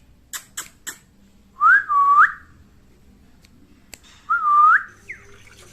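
A parrot whistling twice, each whistle a short rising note followed by a longer swooping note that climbs at the end, with a brief falling whistle after the second. A few sharp clicks come before the first whistle.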